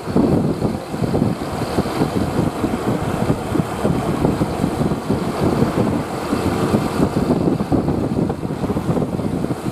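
Vehicle engine and road traffic noise, a steady rumble with wind buffeting the microphone; no horn sounds.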